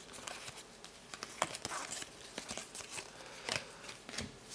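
2019-20 NBA Hoops basketball cards being flipped one at a time through a stack in the hands: soft card-on-card slides and rustling with irregular light clicks as each card is moved.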